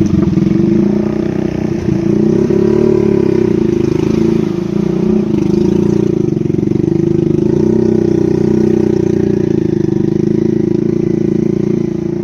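An engine running steadily at an even speed, its pitch lifting slightly about two to three seconds in.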